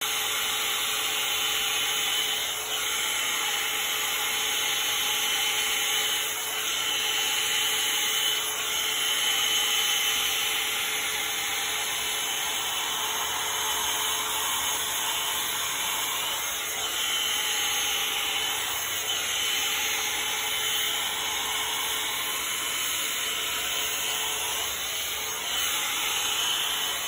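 One-step hair dryer brush running steadily: a continuous rush of air with a thin, steady high whine from its fan motor.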